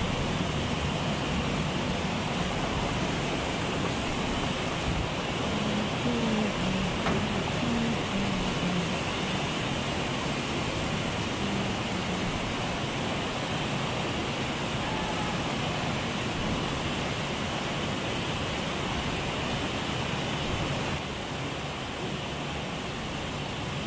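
Automatic shrink-sleeve labeling machine and steam shrink tunnel running, a steady machinery hiss and hum with no distinct strokes, a little quieter near the end.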